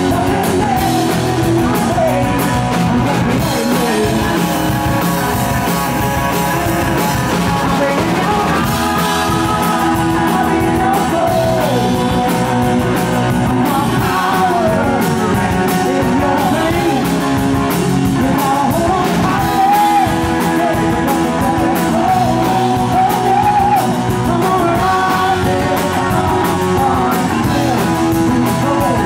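Live rock band: a woman sings lead over electric guitar, bass and a drum kit.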